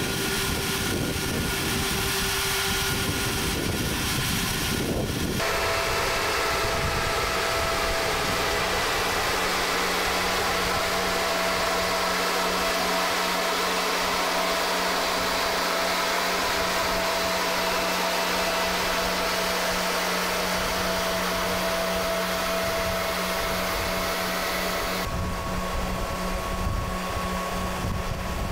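Steady machine noise from a multi-axle girder transporter's engine and hydraulic power unit running, a hiss with a low steady hum under it. The sound changes about five seconds in and again near the end.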